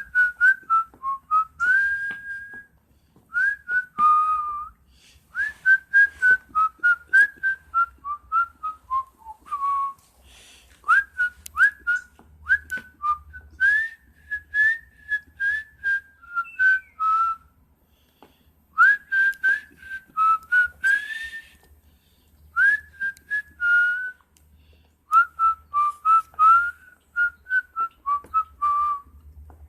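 A person whistling runs of short, chirping, birdlike notes that slide up and down, in phrases of a few seconds with short pauses between them. Each note starts with a sharp click.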